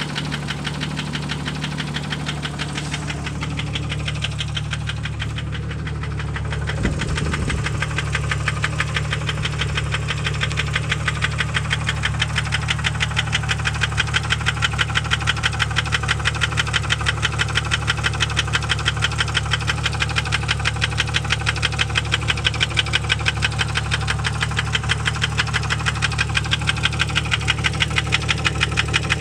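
A 1998 Jeep Grand Cherokee's 4.0-litre inline-six running steadily with a regular, even knock. The knock grows more distinct about seven seconds in.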